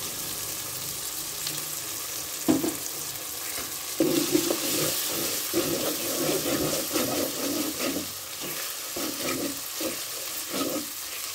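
Onion, garlic and ginger sizzling in hot mustard oil in an aluminium pot. There is a single knock about two and a half seconds in as a ground paste is tipped in. From about four seconds a metal spoon scrapes and stirs against the pot in repeated strokes.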